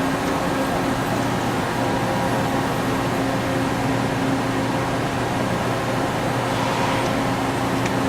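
Milltronic HBM 4 CNC horizontal boring mill running under power: a steady mechanical hum with several constant whining tones, a lower hum joining about a second in.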